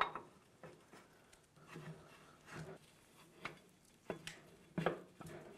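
Faint, irregular metal clicks and clunks from the heavy steel swing arm of a two-post automotive lift being worked and swung on its pivot at the carriage.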